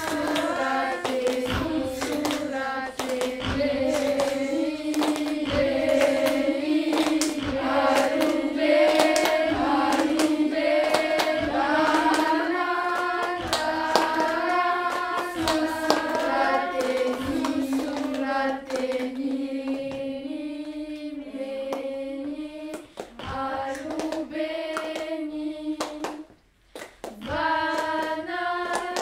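Children's voices singing a slow, chant-like lullaby together in sustained, gently wavering notes, over scattered sharp clicks and knocks. The singing breaks off briefly about 26 seconds in, then starts again.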